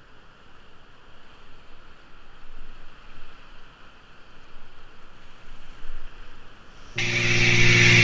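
Steady rush of whitewater rapids picked up by a GoPro camera on a kayak run. About seven seconds in, loud music starts suddenly and drowns it out.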